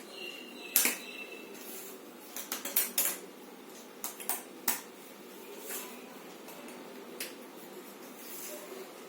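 Jigsaw puzzle pieces clicking and tapping on a hard surface as they are handled and fitted, in scattered single taps and quick clusters of a few.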